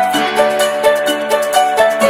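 Background music: an instrumental tune of plucked, bright notes over a sustained bass line, with a steady rhythmic pulse.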